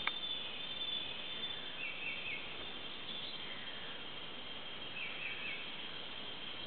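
Tropical forest ambience: a steady high insect drone, with a short three-note chirping call heard twice, about three seconds apart. There is a single click at the very start.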